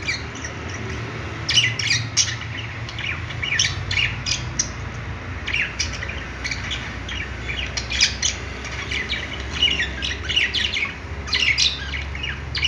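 Several budgerigars chirping and chattering in quick bunches of short, high squawky notes, over a steady low hum.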